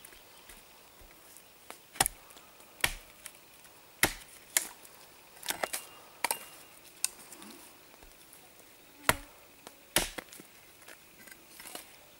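Axe chopping a dry branch knot held on a wooden stump: about ten sharp chops at uneven intervals, splitting the knot into kindling for a campfire.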